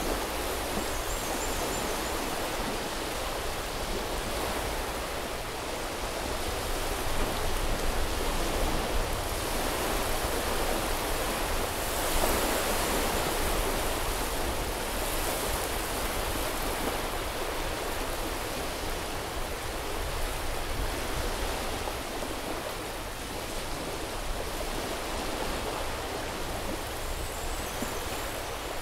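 Sea surf washing onto a beach: a steady hiss of small waves that swells and eases every few seconds.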